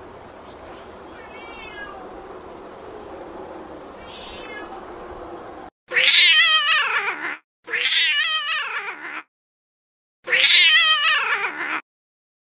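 Domestic cat giving three loud, long meows with a wavering pitch, each about a second and a half long, the last ending shortly before the close. Before them, a low steady hiss carries two faint wavering cat cries.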